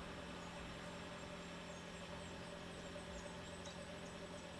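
Faint outdoor ambience: a steady low hum with scattered short, high chirps.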